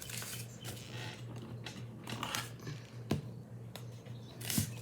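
Small objects being handled on a table: a string of light clicks and rustles, with sharper clicks about three seconds in and near the end, over a steady low hum.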